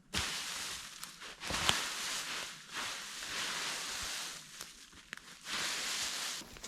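Rustling or crunching in several swells of about a second each, with a sharp crack about two seconds in.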